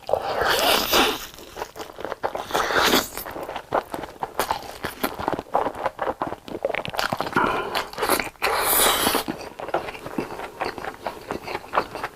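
Close-miked eating of long fried cheese sticks: crunching bites and chewing, with a few louder crunching bursts among steady small clicks of chewing.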